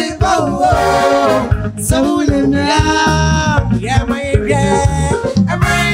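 The show's upbeat theme song: sung vocals over a band backing with a bass line moving in steady steps.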